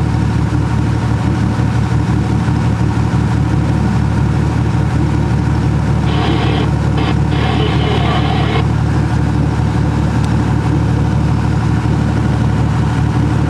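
Towing boat's motor running steadily under way, pulling a sailboat astern. About six seconds in, a hiss lasts for about two and a half seconds.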